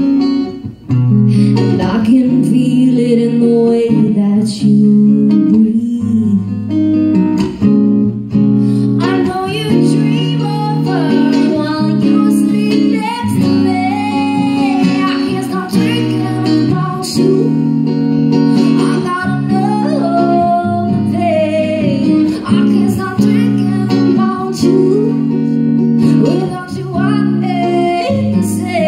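A woman singing live into a microphone, accompanied by a man playing acoustic guitar: a slow, stripped-down song of held chords under her sung melody.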